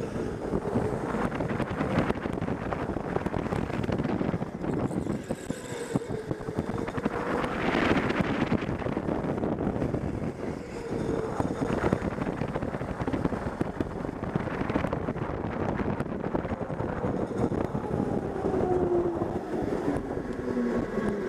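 Onboard sound of an electric indoor go-kart at speed: a steady rumble from tyres and chassis with wind on the microphone, over a faint motor whine that rises and falls with speed and drops in pitch near the end as the kart slows.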